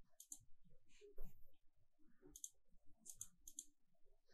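Computer mouse button clicks, each one a quick press and release, about four times in a quiet room. A dull knock about a second in is louder than the clicks.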